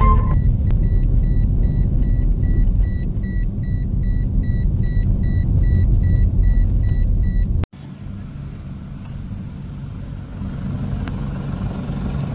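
Car driving on a rural road, a loud steady low rumble of engine and tyres heard from inside the cabin, with a faint high beep repeating about three times a second. About two thirds in it cuts off suddenly to a quieter steady low hum.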